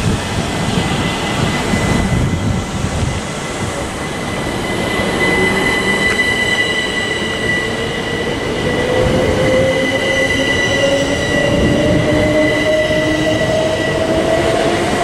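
Class 387 Electrostar electric multiple unit pulling out of the platform and gathering speed. A steady high tone carries through over the rumble of the wheels, and from about five seconds in a whine rises steadily in pitch as the traction motors accelerate the train.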